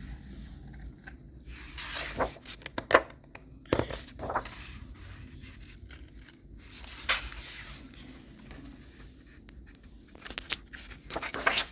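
Paper rustling and scraping as a picture book's pages are handled and turned, in several short bursts with pauses between them.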